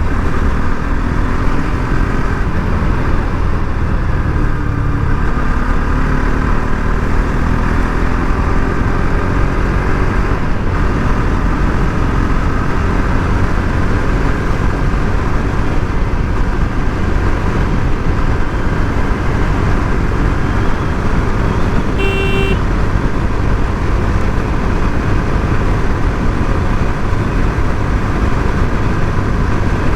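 Bajaj Pulsar RS 200 single-cylinder engine running steadily under way, with a loud constant rumble of engine and road noise and a little rise and fall in revs early on. A short horn beep sounds about two-thirds of the way through.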